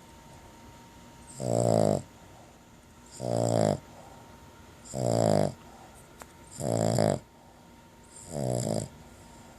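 Boston terrier snoring in her sleep: five pitched snores, each about half a second long, coming at an even pace of roughly one every 1.7 seconds.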